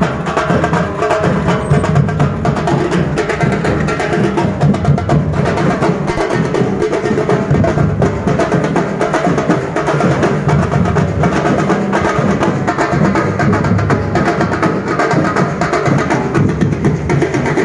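Percussion-led music with continuous rapid drumming that never pauses.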